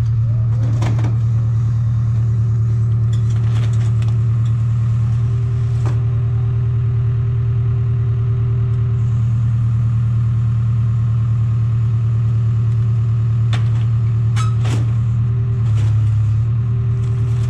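A large engine running steadily at constant speed, with scattered clanks and clatters over it. Its low note deepens briefly about a second before the end.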